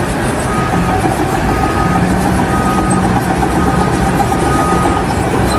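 A heavy vehicle's engine running loudly and steadily, with a beeping tone that sounds for about half a second roughly once a second.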